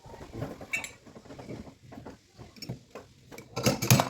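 Light metallic clinking and tapping of tools, a string of short irregular clicks, with a louder clatter near the end.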